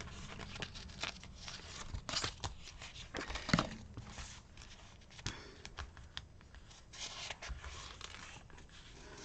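Paper rustling and crinkling as sticker-book pages are turned and sticker sheets handled, with scattered light clicks; the loudest rustle comes about three and a half seconds in.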